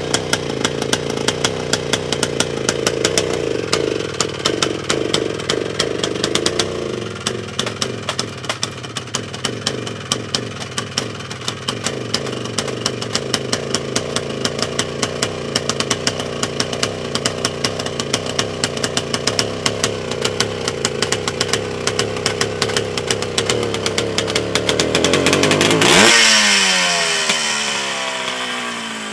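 1968 Husqvarna 250 two-stroke single-cylinder motocross engine running at idle with rapid, steady firing, then revved once near the end, rising quickly and falling away. The owner describes the carburettor as flooding.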